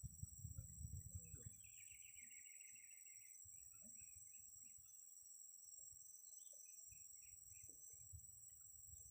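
Faint outdoor ambience: a steady high insect drone, a short chirring trill about two seconds in, and scattered faint bird or insect chirps, with a low rumble of wind or handling noise at the start.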